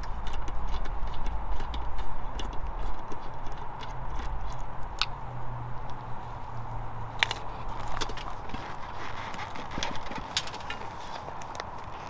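Scattered clicks and knocks of hand work on a motorcycle: the seat's single screw being undone and the seat lifted off. Underneath runs a low rumble that dies away about three seconds in.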